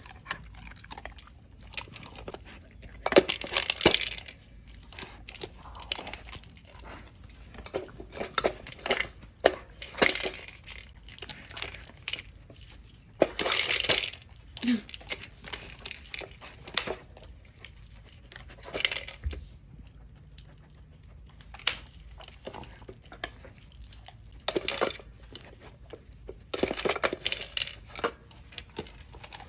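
A puppy eating dry kibble from a bowl: irregular clinks and rattles of the food against the bowl, with a few louder scrabbling spells.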